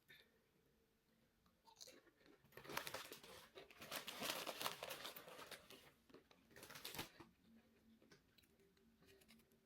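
Faint eating sounds of someone taking a first taste of a spicy seafood bowl: chewing and rustling that start about two seconds in, are loudest in the middle and end with a sharp click about seven seconds in.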